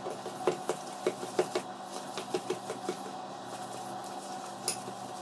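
A spatula stirring and scraping butter and sugar in a stainless steel mixing bowl, with irregular light knocks and scrapes against the bowl's side, a few a second: creaming the butter and sugar for a cake batter.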